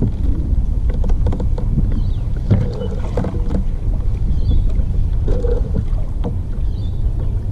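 Water lapping against a kayak hull, with a low wind rumble on the microphone and scattered small knocks and clicks.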